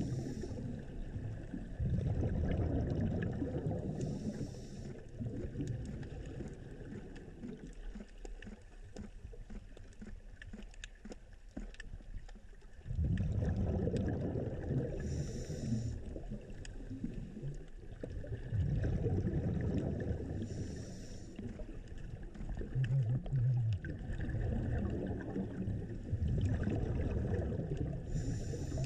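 Underwater ambience heard through a submerged camera: a low rumbling wash of moving water that swells and fades, quieter for a few seconds in the middle, with a short high hiss recurring every five seconds or so.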